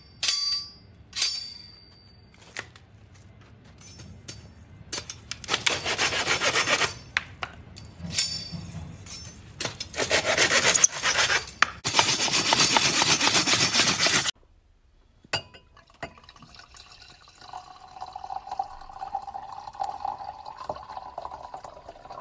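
A few metallic clinks from the blades of a double-bladed hand saw, then the saw cutting through a wooden branch in three spells of fast back-and-forth strokes that stop abruptly. In the last few seconds, wine pouring from a bottle into a glass.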